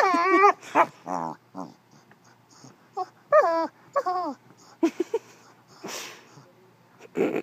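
English setter making a string of whining, moaning vocal noises: short pitched calls that bend up and down, one of them buzzy, with a few breathy sounds near the end.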